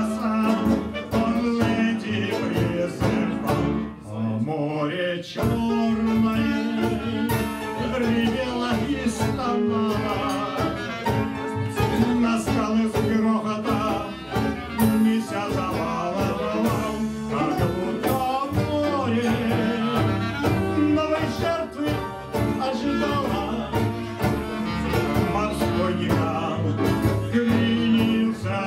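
Small live band playing a tango: a man sings over clarinet, acoustic guitar, double bass and drum.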